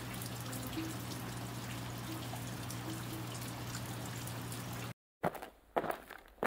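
Steady rain falling, an even hiss with fine patter, over a low steady hum. It cuts off about five seconds in, followed by a few short knocks.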